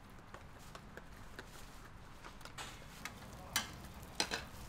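Metal spatulas clinking and scraping on a flat-top griddle as cooked vegetable egg pancakes are cut and stacked, with light scattered ticks and then a few sharp metal clinks in the last second or so.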